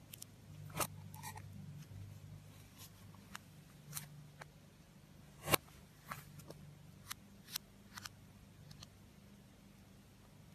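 Thick slime pressed by hand and spread and cut with a butter knife on a table, giving scattered sharp clicks and pops, the loudest about five and a half seconds in, over a faint low hum.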